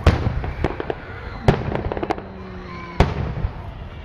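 Aerial firework shells bursting in a display: three loud bangs about a second and a half apart, with smaller pops between them, each bang trailed by echo.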